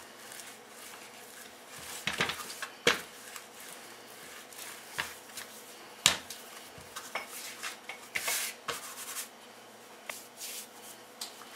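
Rolling pin rolling biscuit dough circles flat on a floured pastry mat: a soft rubbing sound broken by a few sharp knocks as the pin and dough are moved about.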